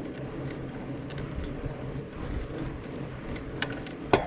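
Mountain bike tyres rolling over a sandy dirt road: a steady rolling hum with light rattles from the bike. There are a couple of sharper knocks near the end.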